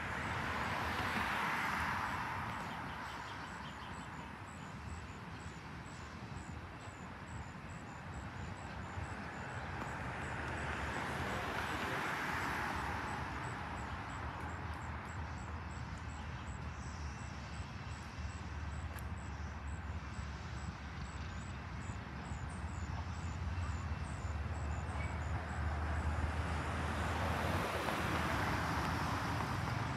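Road traffic: vehicles passing by with tyre noise that swells and fades about three times, the last pass building near the end, over a steady low rumble.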